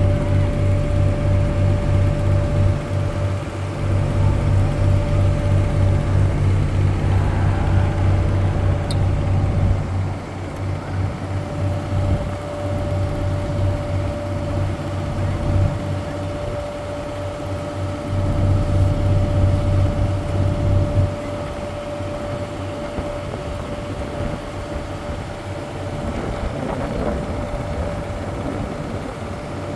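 A river cruise boat's engine running, heard on board: a steady, pulsing low drone with a constant higher whine above it. The drone eases about a third of the way in, comes back briefly past the middle, then eases again.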